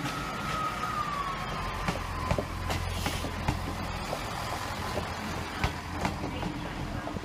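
Class 158 diesel multiple unit running past close by: a low engine rumble with a whine that falls in pitch over the first couple of seconds, and wheels clicking irregularly over rail joints.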